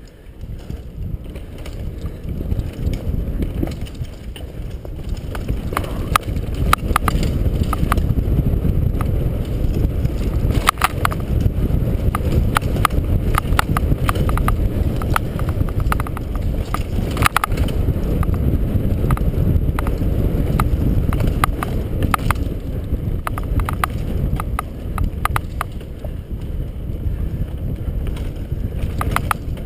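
Mountain bike riding fast down a dirt singletrack: a steady low rumble of wind on the microphone and tyres on the trail, with clattering knocks as the bike rattles over bumps. The rumble grows louder over the first few seconds, and the knocks come thickest in the middle.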